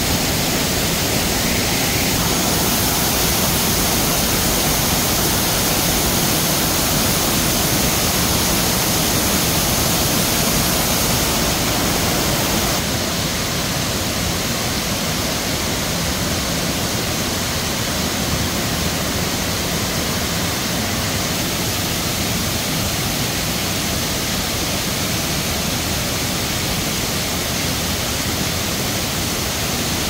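Low, tiered forest waterfall cascades rushing steadily, swollen with muddy rainy-season water; the rush turns a little quieter partway through.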